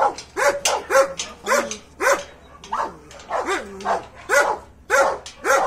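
Dogs barking in a steady, rapid series, about two barks a second: territorial barking at strange dogs that have come to the gate.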